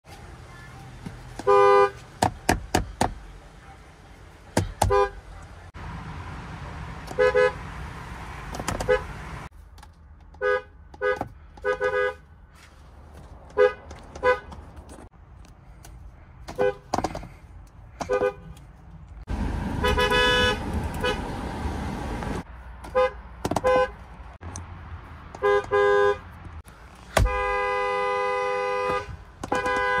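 Ford Explorer car horns, including an Explorer ST's, sounded in many short honks, mostly in quick pairs. A single long blast of about two seconds comes near the end.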